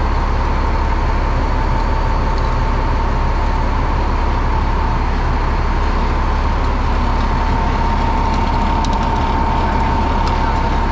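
International 5600 truck's engine running steadily, with a constant high whine over the low rumble, as the newly fitted salt spreader spinner is run.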